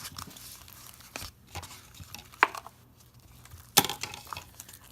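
A spoon or utensil clinking and knocking against a mixing bowl as slime is stirred, a few scattered taps with a sharper knock near the end.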